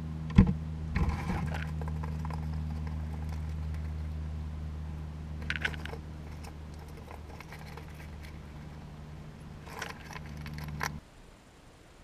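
Chipmunk handling peanuts in the shell right at the microphone: quick sharp clicks and scratches in a few clusters, the loudest about half a second in, over a steady low hum.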